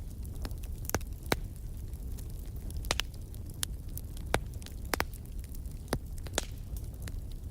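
Wood fire burning in a fireplace: a steady low rumble of flames with irregular sharp crackles and pops from the logs, about one or two a second.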